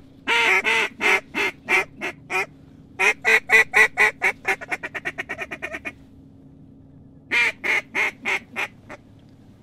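Mallard hen duck call blown by a hunter: three sequences of loud, nasal quacks. The middle sequence starts with slower quacks and breaks into a fast, fading run of short quacks, like a comeback or feed-chatter call.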